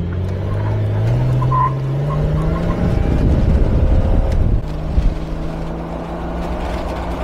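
Golen 4.6-litre stroker inline-six in a Jeep Wrangler LJ accelerating, heard from inside the cab: the engine note climbs for about three seconds, then it drops to a steady lower drone from about five seconds in.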